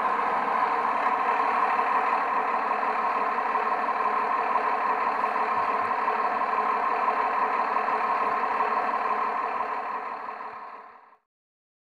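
Idling engine sound from an RC snow groomer's sound module, played through a small loudspeaker: steady, then fading out near the end.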